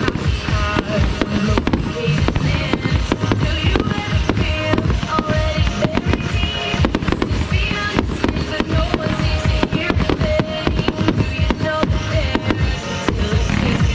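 Fireworks going off in rapid succession, several sharp bangs a second, over music playing at the same time.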